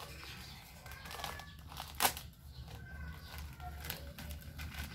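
A small plastic snack packet being crinkled and torn open by hand, with one sharper crack about two seconds in.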